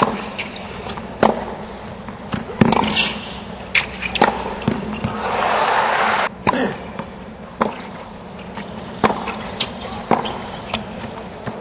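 Tennis ball struck back and forth by racquets in a hard-court rally, a sharp pop every second or so. A short burst of crowd cheering and applause swells about five seconds in and cuts off suddenly, then the spaced racquet hits of another rally follow.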